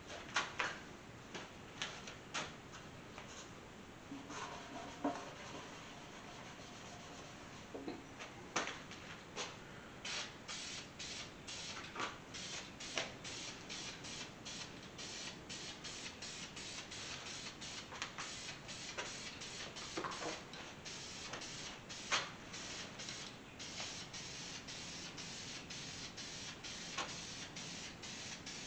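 Aerosol spray can of Dupli-Color engine paint hissing in short rapid bursts, several a second, from about ten seconds in, turning into a steadier hiss near the end as paint is sprayed onto an engine. A few sharp clicks and knocks come in the first seconds.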